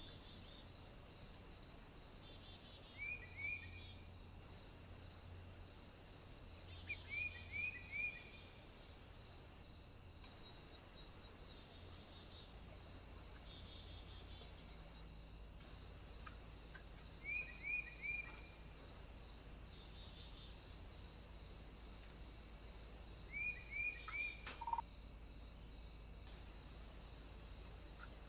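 A small bird calling in short runs of three or four quick, downward-sliding notes, four times, over a steady high hiss. A single sharp click sounds near the end.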